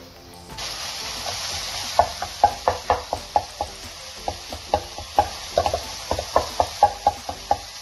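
Boneless chicken sizzling in a non-stick wok as it starts to cook. From about two seconds in, a spoon mashes and stirs it, knocking against the pan about three times a second in uneven strokes, breaking the chicken into small pieces.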